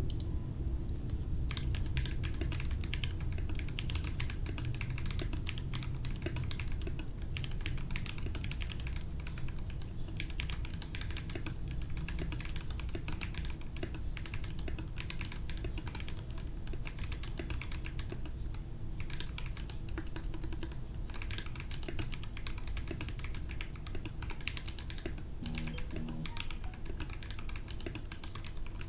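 Typing on an RK61 mechanical keyboard with Honey and Milk keycaps: rapid, continuous keystroke clacks starting about a second and a half in, with brief pauses between bursts.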